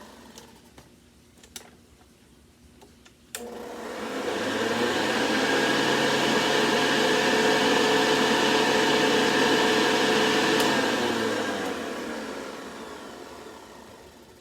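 Vintage Hoover 707 vacuum cleaner motor switched on with a click, spinning up to a steady whirring run, then switched off and coasting down with falling pitch. The owner feels the motor doesn't sound 100%.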